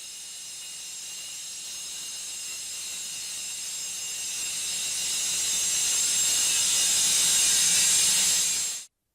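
Vacuum cleaner motor running: a steady airy hiss with a high whine. It grows slowly louder, then cuts off suddenly near the end.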